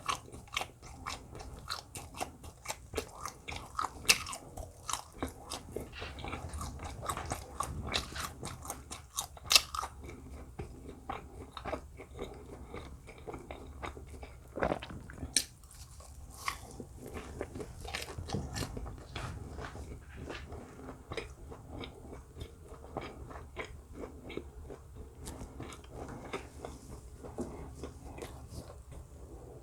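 Close-miked eating sounds: biting and chewing food, with many short crunchy clicks, thickest in roughly the first ten seconds and more scattered after.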